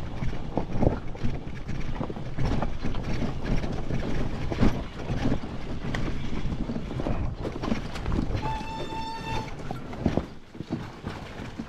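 Honda CR500's single-cylinder two-stroke engine running at low revs, with knocks and rattles as the bike works over a rocky trail and wind on the microphone. About 8.5 s in, a steady beep-like tone sounds for about a second. The engine noise drops off about ten seconds in.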